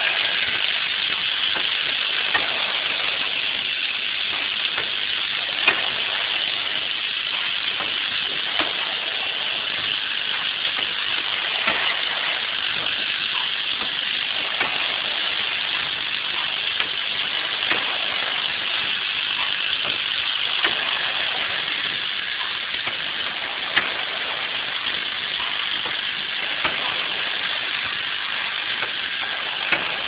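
Automatic pad printing machine for optical fiber plugs running: a steady hiss with a sharp click about every three seconds as it cycles.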